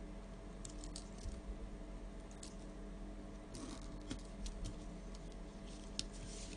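Faint scratching and light clicks of a pen and a plastic set-square ruler on paper as lines are ruled, in scattered short strokes over a low steady hum.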